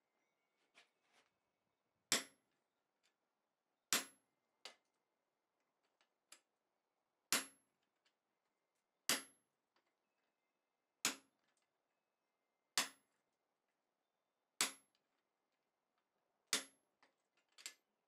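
Hand hammer striking the struck end of a blacksmith's guillotine tool's mild steel top die, about eight sharp metal-on-metal blows roughly two seconds apart with a few lighter taps between. The round dies are forging a notch into a red-hot bar to isolate material for a tenon.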